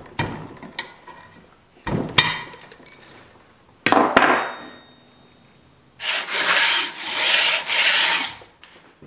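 Metal tool scraping and clinking on a 1937 Chevy 216 cast-iron cylinder head as its split copper exhaust-port inserts are worked out. There are short scrapes and a ringing clink in the first half, then a long rasping scrape in about three strokes from about six seconds in.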